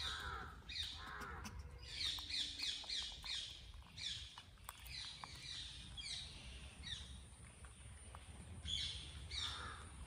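Birds calling in quick runs of short, high chirps and squawks, each call falling in pitch.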